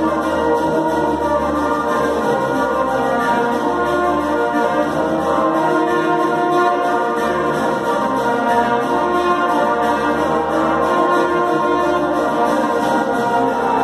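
School brass band playing long held chords, with cornets, trombones and tubas sounding together.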